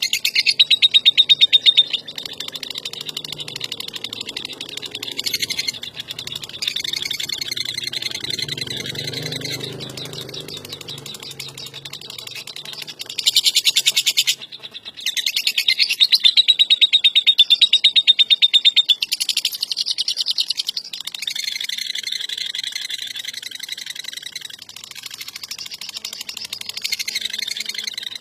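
Lovebird's long chattering song (ngekek): very fast, evenly repeated high notes in long unbroken runs, loudest in the first couple of seconds and again from about thirteen to nineteen seconds in.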